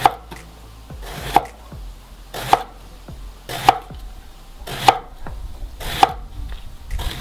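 Chef's knife slicing an eggplant into thick rounds on a wooden cutting board. Each stroke is a short slicing hiss ending in a knock of the blade on the board, evenly paced at about one cut every 1.2 seconds, six cuts in all.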